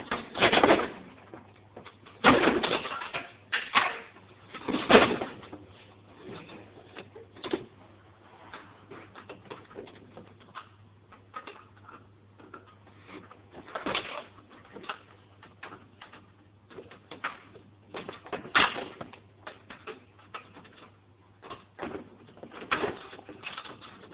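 Irregular knocks, clanks and rattles of metal mower parts and tools being handled while the engine is taken off the deck, with a few louder knocks spread through.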